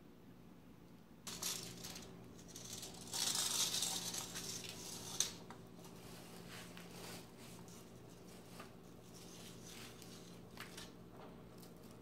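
Scraping and rustling handling sounds, loudest a few seconds in and ending with one sharp click, then scattered faint clicks, over a faint steady hum.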